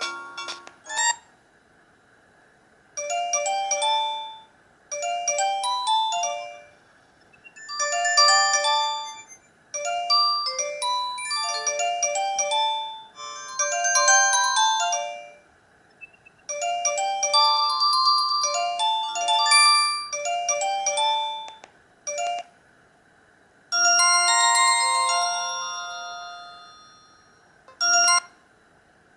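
Alcatel OT-117 mobile phone playing its built-in ringtones: short electronic melodies of quick stepped notes, in phrases separated by brief silences. Near the end comes a long chord that fades out, then a short blip.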